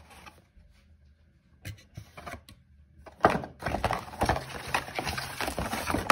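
Product packaging handled by hand: two light taps, then from about halfway in a few seconds of dense crinkling and rustling as the contents are pulled out of the box.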